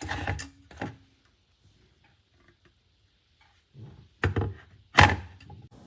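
Knocks and clicks from handling an electric gooseneck kettle: a couple of knocks at the start, faint small ticks, then two louder knocks about four and five seconds in, the second the loudest.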